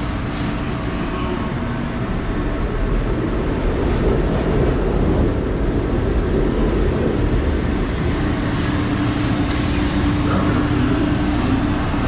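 Kawasaki Type K light rail car pulling into an underground station: a low rumble of wheels on the rails that grows louder as it passes close. A steady hum sets in as it comes to a stop, with a couple of brief hisses near the end.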